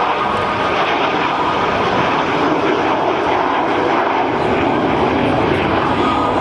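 Avro Vulcan bomber's four Rolls-Royce Olympus turbojets, a loud, steady jet noise as the aircraft flies its display, with a faint high whine in the noise.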